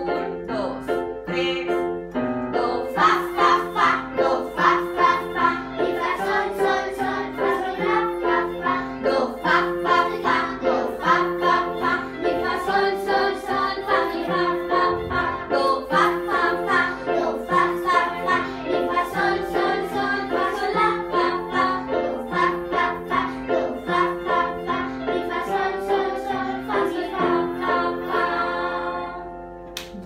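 A class of children and their teacher playing a tune together on electronic keyboards, with children's voices singing along. The playing stops near the end.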